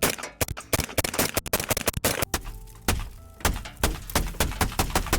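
.308 rifle rounds striking a car windshield: a fast, irregular string of sharp cracking impacts, like heavy ice falling onto a car.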